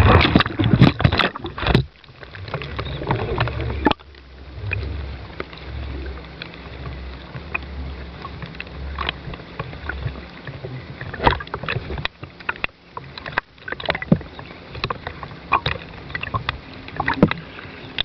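Scattered, irregular knocks and taps on a small radio-controlled boat, heard through the camera built into its cabin, with a low rumble for several seconds in the first half.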